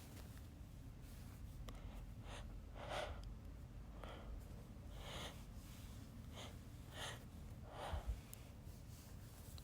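A person's faint, sharp hitching breaths before a sneeze: about seven short gasping inhalations spread over several seconds, the sign of an irritated nose building toward a sneeze. A soft low thump comes about eight seconds in.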